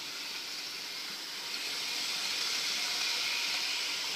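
Hornby model train running along its track: a steady hissing whir of the small electric motor and wheels on the rails, growing louder through the middle as the train comes close.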